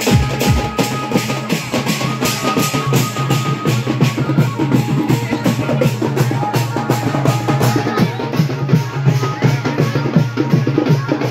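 Loud dance music led by a steady, fast drumbeat, with a few held melody notes over it, played through horn loudspeakers.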